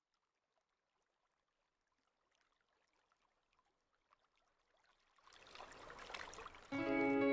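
Near silence, then faint crackling of bath foam. About two seconds from the end a watery rushing noise swells up, and music with held notes cuts in loudly just before the end.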